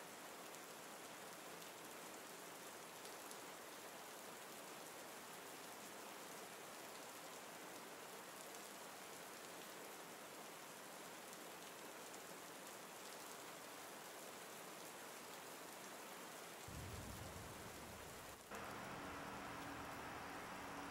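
Faint, steady even hiss with no distinct strokes. A low rumble comes in near the end, followed by a low hum.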